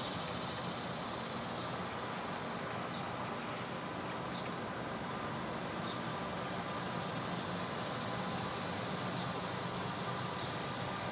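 Insects trilling steadily at a high pitch, a continuous fine pulsing buzz over a steady outdoor background hiss.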